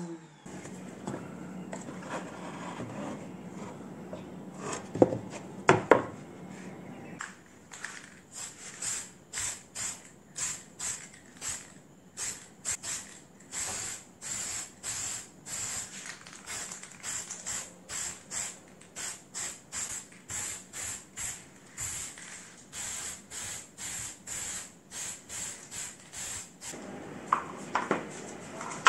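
Aerosol spray-paint can sprayed in short hissing bursts, about two a second, over many seconds while panels are coated. A few sharp knocks come about five to six seconds in, before the spraying starts.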